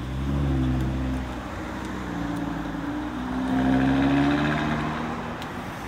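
Audi TT Roadster's engine pulling away and accelerating. It runs fairly steady at first, then the note rises and is loudest about four seconds in, easing off near the end.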